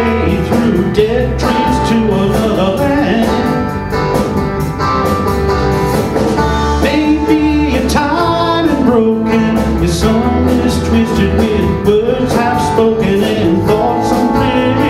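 Live rock band playing an instrumental passage on guitars, bass and drums, with a melody line that bends up and down in pitch over a steady bass.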